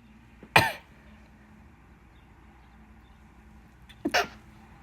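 A woman sneezing twice, with hay-fever sneezes brought on by pollen. One sharp sneeze comes about half a second in, and a second sneeze near the end comes as a quick double burst.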